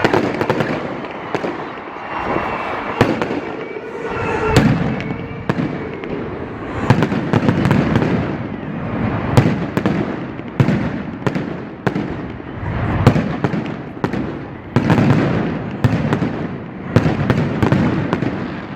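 Fireworks display: a steady stream of sharp bangs and crackles, with heavy low booms every second or two.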